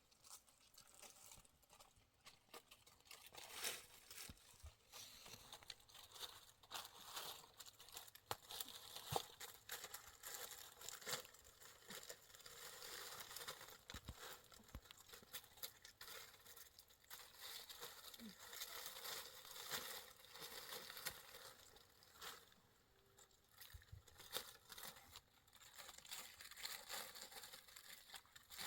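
Faint rustling and crinkling, with scattered small clicks and knocks.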